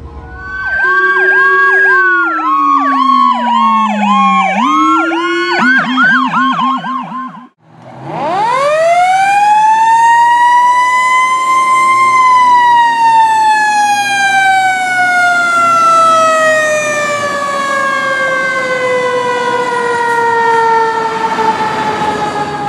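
Fire apparatus sirens. First an electronic siren cycling in a fast yelp over a siren tone that dips and climbs again; it cuts off at about seven and a half seconds. Then a mechanical siren winds up steeply to a high howl and slowly winds down over the rest.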